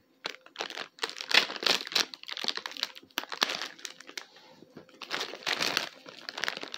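Plastic Happy Meal toy bag crinkling and tearing as it is cut and pulled open, in several bursts of rustling with sharp clicks.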